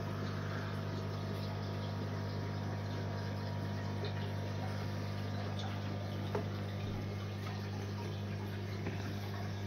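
Steady low hum with running water from a sumped aquarium's filtration: the pump humming and water flowing through the pipework to the sump. Two faint ticks in the second half.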